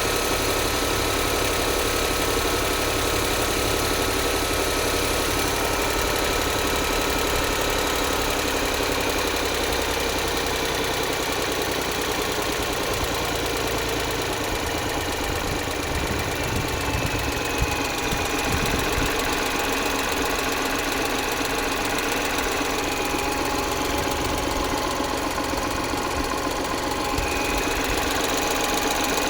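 Lynk & Co 01 plug-in hybrid's 1.5-litre three-cylinder petrol engine idling with a steady, rapid knocking that the owner takes for lifter knock.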